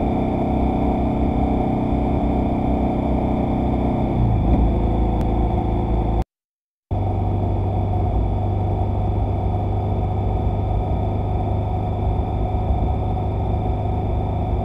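Vehicle engine running steadily at road speed with road and wind noise, picked up by the dashcam's microphone. The engine pitch drops about four seconds in, and the sound cuts out for about half a second where two dashcam recordings are joined.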